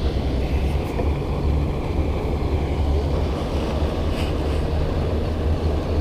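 Steady low rumble of wind buffeting an action camera's microphone.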